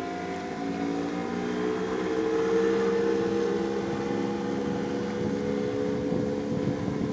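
Tohatsu outboard motor driving a plywood skiff under way, a steady engine drone that grows louder about two to three seconds in and then eases slightly as the boat moves off.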